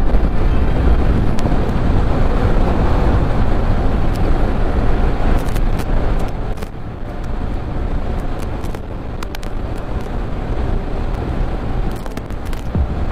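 Motorcycle riding on the road: engine drone mixed with wind and road rumble, with scattered clicks. The sound gets a little quieter about six and a half seconds in.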